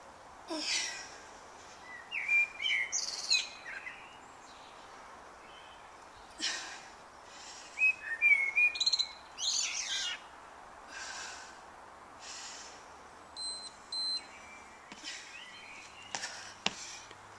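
Garden birds chirping and singing, short phrases of chirps and whistled notes every second or two over a faint steady background hiss. A few sharp clicks sound near the end.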